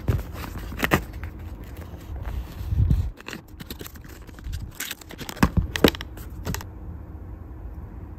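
Paperboard cosmetics boxes being handled and one opened, with scraping and crinkling of the card and sharp taps and clicks as a glass serum bottle is taken out; a dull thump about three seconds in. The handling stops about two thirds of the way through, leaving a steady low hum.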